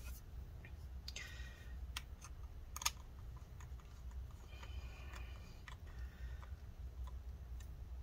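A small precision screwdriver driving screws into a Mac Mini hard drive bracket: faint scattered clicks and a couple of brief squeaks as the screws are tightened down, over a low steady hum.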